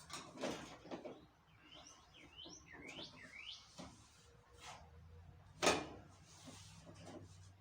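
Clicks and knocks of hand tools and metal panel parts being handled while screws are taken out of a dryer's top plate, with one sharp knock a little past the middle. A quick run of four or five high, short chirping squeaks comes about two seconds in.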